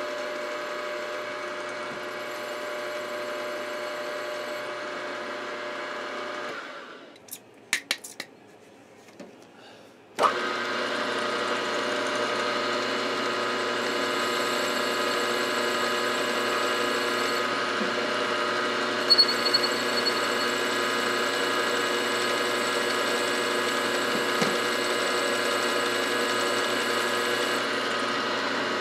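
Milling machine running steady while a drill bores down through a cast base. About six and a half seconds in the motor runs down and stops, a few sharp clicks follow, and about ten seconds in it starts again abruptly and runs steadily on.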